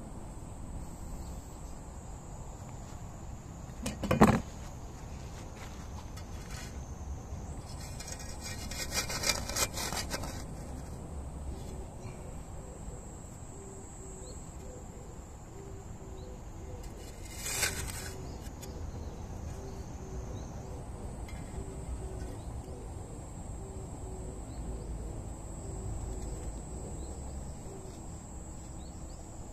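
Hand tools scraping and digging in dry soil: one sharp scrape about four seconds in, a quick run of rasping strokes a few seconds later, and another short scrape just past the middle. Under them a steady high insect buzz carries on.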